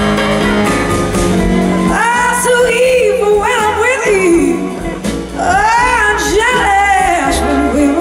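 Live band playing a slow blues, with electric guitar and a woman singing long, bending notes from about two seconds in.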